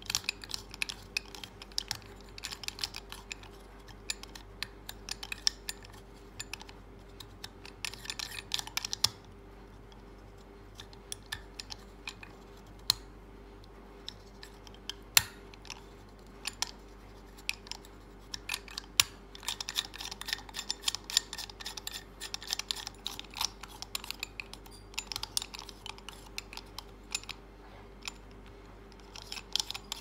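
Rotary-dial combination padlock clicking as its dial is spun right and left, with the shackle held under tension. The clicks come in quick runs broken by pauses, with a few louder single clicks in between.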